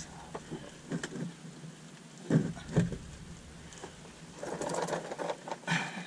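Scattered knocks, then a short clattering rattle about four and a half seconds in, as a power steering rack with its metal lines still attached is lifted out from under a car and handled.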